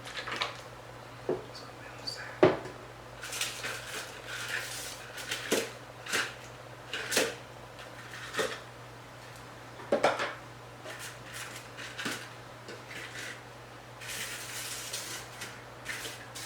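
Dishes and containers clinking and being set down on a table in a string of sharp knocks, with bursts of rustling twice, as food and items are arranged. A faint steady low hum runs underneath.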